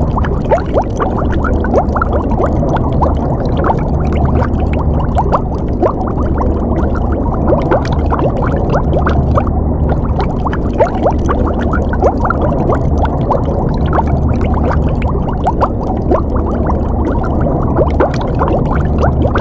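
Underwater water ambience: steady bubbling, with many small bubbles over a constant low rumble. It sounds dull and muffled, with little treble.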